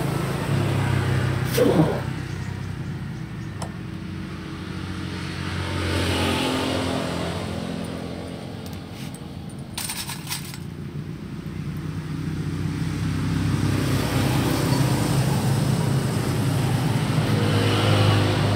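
An engine running steadily, its level swelling and fading, with a cluster of metallic clicks about ten seconds in.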